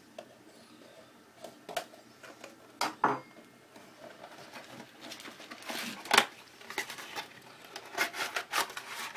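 Cardboard and plastic packaging of a processor retail box being handled: a knife cutting the box's seal, then the box slid open and its inner tray pulled out, in scattered scrapes, rustles and clicks, loudest about six seconds in.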